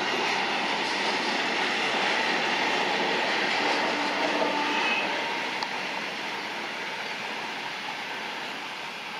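Covered car-carrier freight wagons rolling past on a curve: steady wheel-on-rail noise with a few faint wheel squeals about four seconds in, fading over the second half as the end of the train goes by.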